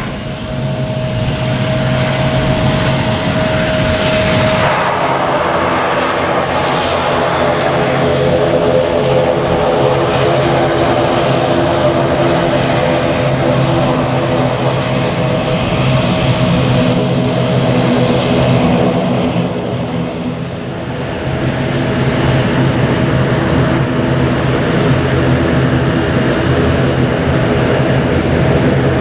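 Airliner engines running close by, a loud steady drone with a low hum and a higher whine, dipping briefly about two-thirds of the way through.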